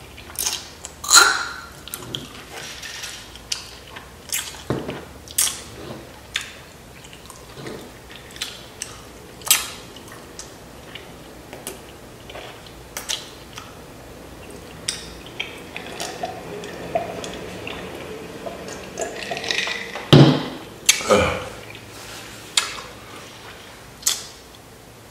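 Close-miked eating sounds from loaded Flamin' Hot Doritos nachos: chewing, wet smacks and mouth clicks scattered throughout. Louder ones come about a second in, around ten seconds in and about twenty seconds in.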